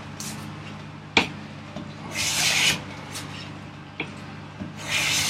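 Stanley No. 6 hand plane taking short strokes along a wooden board, each stroke a brief hiss of a shaving coming off, two strokes a few seconds apart. A sharp knock comes between the strokes as the plane meets the wood. The strokes are shaving down a hump in the middle of the board.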